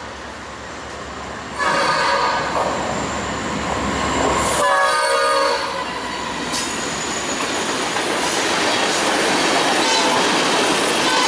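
Diesel freight locomotive's air horn sounding two blasts about three seconds apart, over the continuous noise of a train rolling along the rails.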